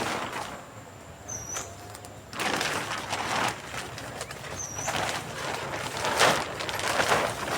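Irregular bursts of dry rustling and crunching, a few seconds apart. A short high chirp sounds twice, between the bursts.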